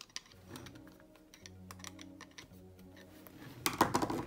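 Irregular light clicks and taps of a screwdriver and fingers on a cassette deck's metal tape transport mechanism, then a louder rattling clatter near the end as the mechanism is picked up and handled.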